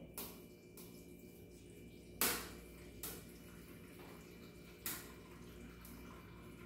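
Hot water poured from a ceramic kettle into an aluminium pan to fill a water bath, a faint steady trickle. A few sharp knocks break in, the loudest about two seconds in.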